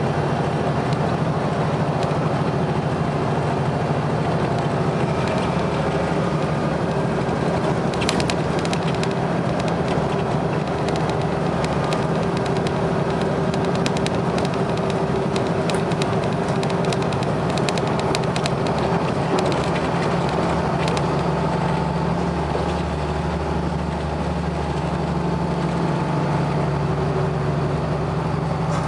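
Volvo B7RLE bus's seven-litre six-cylinder diesel engine running at a steady pitch, with a stretch of sharp rattling clicks through the middle.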